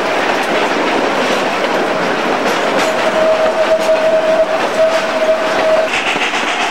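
Ride of a steam train's passenger car, heard from an open window: steady rattle and clatter of the wheels on the track. A steady high squeal sets in about three seconds in, breaks briefly and stops near the end, and a higher-pitched squeal begins just after it.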